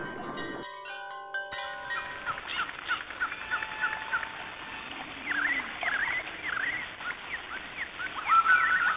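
Stock nature sound effects. A few clear, held chime-like tones come in the first two seconds, then wild birds chirp over a steady hiss, with a run of short rising-and-falling chirps in the middle. A different bird's repeated call begins near the end.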